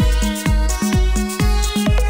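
Electronic dance music with a steady kick-drum beat, about two beats a second, under a synth melody.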